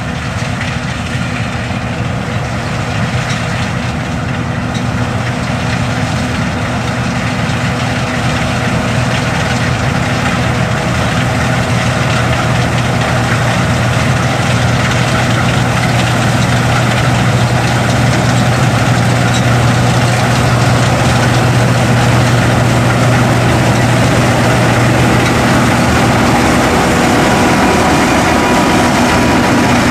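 John Deere S550 combine harvester running under load while cutting grain: a steady drone from its 271-horsepower engine and threshing machinery, with a low hum, getting slowly louder.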